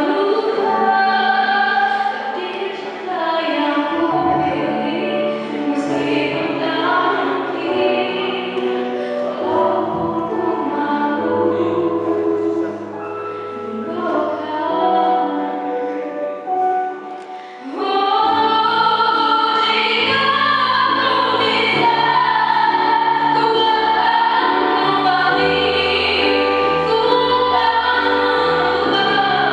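A vocal group singing a song in several-part harmony, with held notes over a low sustained bass line. It dips briefly and then comes back louder and fuller a little over halfway through.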